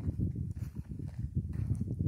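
Footsteps walking along a dirt trail through dry grass, over a low, uneven rumble.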